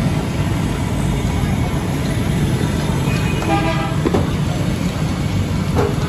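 Steady low rumble of street traffic, with a vehicle horn tooting once, under a second long, about three seconds in, and a shorter tone near the end.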